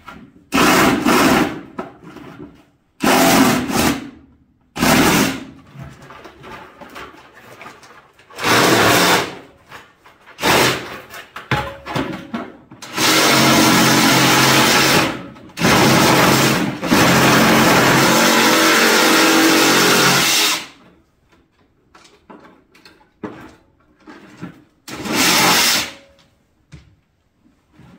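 Cordless Ryobi one-handed reciprocating saw cutting through a plastic five-gallon bucket, in about ten short runs that start and stop. The longest stretches of cutting come in the middle, lasting several seconds, with quieter handling of the bucket between them.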